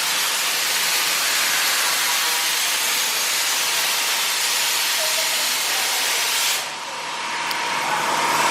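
A loud, steady hiss from metal-workshop equipment cuts off abruptly about six and a half seconds in. A steady whine then builds toward the end.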